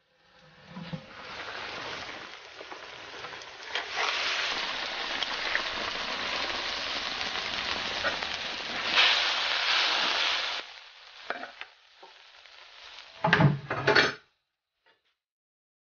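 Pork trotters and dried beans in a thick sauce sizzling in a wok, a steady hiss that stops abruptly about two-thirds of the way in. A few loud knocks near the end.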